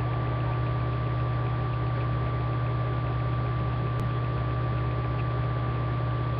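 Steady low hum with a thin high tone and even hiss, broken by a single short click about four seconds in.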